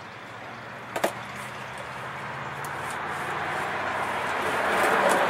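A knife cutting open the tape of a cardboard box: one sharp knock about a second in, then a rushing noise that grows steadily louder, over a low steady hum.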